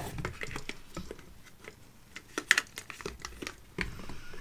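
Light plastic clicks and rustling as parts of a self-watering plant pot are handled and fitted together, with a few sharper clicks about two and a half seconds in and near the end.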